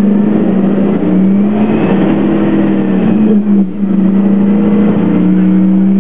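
A 2003 Orion VII CNG bus's Detroit Diesel Series 50G natural-gas engine and Allison B400R transmission running under load as the bus accelerates, with a steady engine drone and slowly rising pitch. The sound breaks briefly about three and a half seconds in, then picks up again, still rising.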